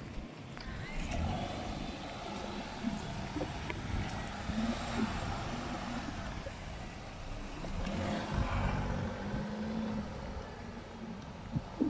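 Cars pulling away and passing close. The engine and tyre noise swells about four seconds in and again about eight seconds in.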